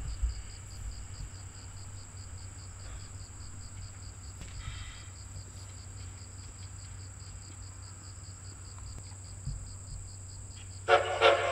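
Insects in the grass chirping in a steady, evenly pulsing high trill over a low distant hum. Near the end a train whistle sounds loudly in two short blasts.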